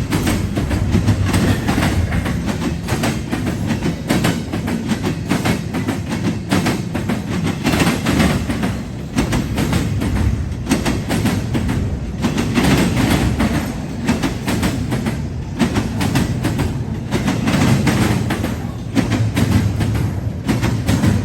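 CSX intermodal freight train I008 rolling past, a steady low rumble with wheels clicking over the rail joints.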